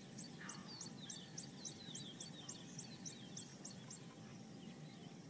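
Faint bush ambience of small birds calling: a high chirp repeats about four times a second and stops about four seconds in, with a few shorter falling chirps among it.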